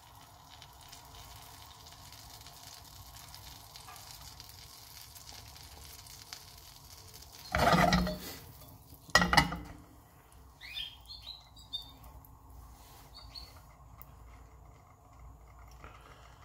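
Butter and oil sizzling steadily in a frying pan with cherry tomatoes in it. Two louder clatters come about eight and nine seconds in, followed by a few faint high squeaks.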